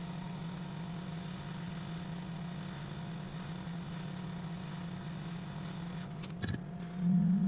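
Hot air rework station blowing steadily through its nozzle onto a chip on a MacBook Pro logic board, heating it during the chip's replacement. A few faint clicks about six seconds in, and the airflow sound swells briefly near the end.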